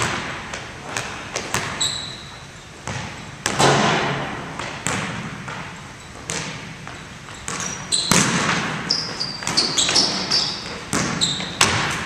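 Basketball bouncing on a hardwood gym floor: irregular sharp thuds that echo around the hall. Sneakers squeak in quick short chirps through the last few seconds as the players move.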